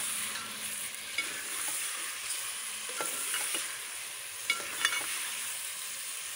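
Chicken and freshly added tomatoes sizzling in ghee in an aluminium pot while a metal ladle stirs them, the ladle clicking and scraping against the pot several times, loudest twice in quick succession a little past the middle.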